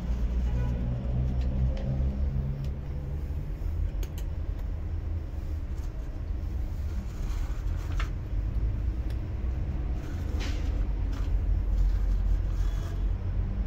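Steady low background rumble, with a few short sharp clicks scattered through it.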